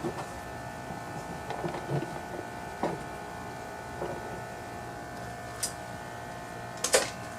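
Scattered light clicks and knocks from small chainsaw parts and tools being handled on a workbench, over a steady background hum; the sharpest click comes near the end.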